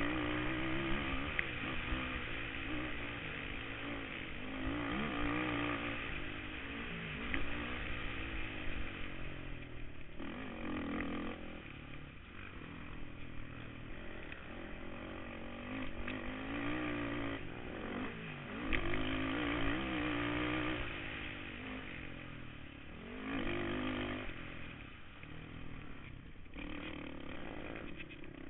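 Kawasaki KFX 450R quad's single-cylinder four-stroke engine revving hard under racing throttle, its pitch rising and falling again and again as the rider gets on and off the gas.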